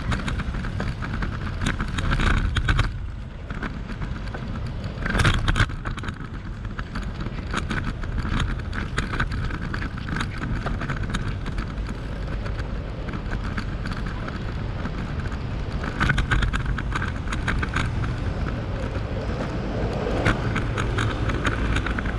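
Wind on the microphone and road traffic, heard from a bicycle riding along a road. There are louder swells about two, five and sixteen seconds in.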